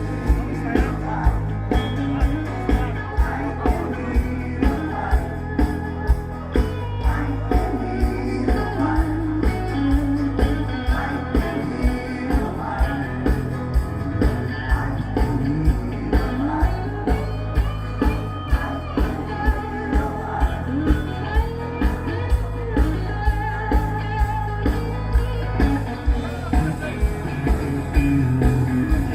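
Rock song with singing, electric guitar, bass and a steady drum beat.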